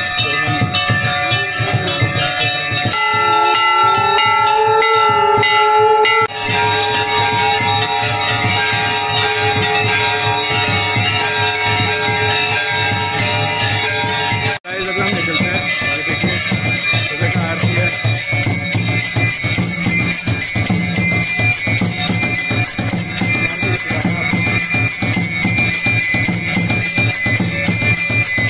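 Brass temple bells ringing rapidly and without pause for the aarti. Over them a long held tone sounds in the first half. From about halfway, a drum beats steadily under the bells, as from an electric aarti machine striking two brass bells and a drum.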